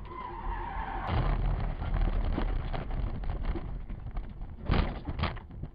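A car crashing off the road into rough ground, recorded from inside by its dash camera: continuous rumbling with many scattered knocks and rattles, then two loud bangs about half a second apart near the end.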